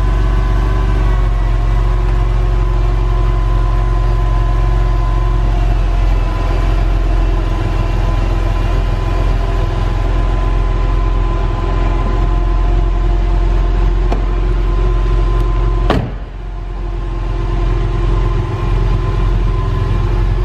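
Power soft top of a 1999 Porsche 911 (996) Cabriolet raising and closing over a steady idle from its 3.4-litre flat-six, with one sharp clunk about three-quarters of the way through.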